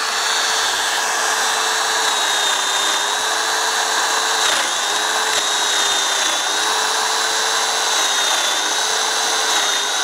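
Domino joiner's motor running steadily as its cutter plunges across the grain into oak to cut a mortise, the pitch sagging briefly a few times under load, most sharply about halfway through.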